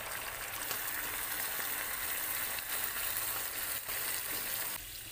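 Sprite soda poured from a bottle into a hot frying pan, sizzling as it hits the hot oil and sauce around a seared whole chicken. The steady sizzle eases off shortly before the end.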